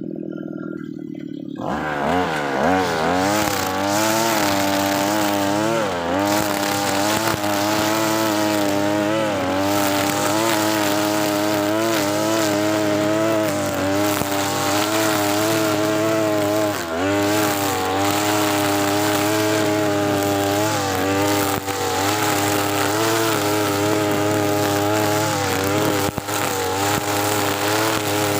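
TB43 two-stroke brush cutter engine running with a trimmer head, quiet at first, then opened up to full throttle about two seconds in. It holds high revs, its pitch sagging and recovering again and again as the line bogs down in thick grass.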